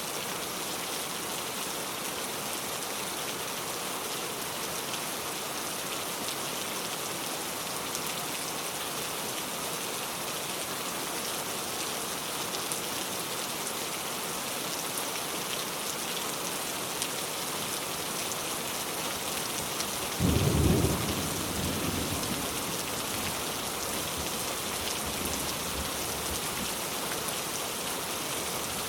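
Steady heavy rain falling, with a single thunderclap about two-thirds of the way in that rumbles away over several seconds.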